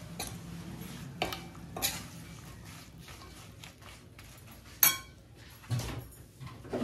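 Steel spoon stirring halved green chillies through oily pickle masala in a stainless steel kadai. Scrapes and clinks of metal on metal come now and then, the loudest a little before five seconds in.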